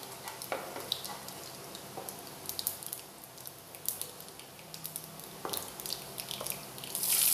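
Cumin and mustard seeds crackling and popping in hot oil, stirred with a wooden spatula at first. Near the end, chopped onion is tipped into the oil and it breaks into a loud, steady sizzle.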